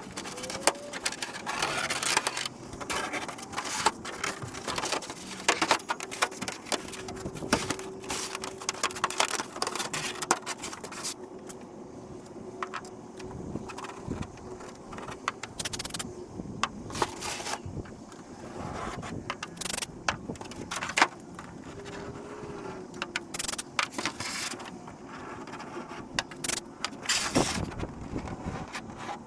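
Clicks, taps and scraping of 3D-printed plastic model parts and small tools being handled and fitted together on a workbench, with a faint steady hum through the middle.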